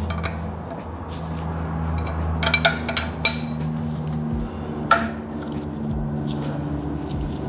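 Metallic clinks of a wrench and cam-locking tool on the M54B30 cylinder head as the camshafts are turned to seat the timing tool flush at top dead center. There is a quick cluster of ringing clinks about two and a half to three and a half seconds in, and one more about five seconds in.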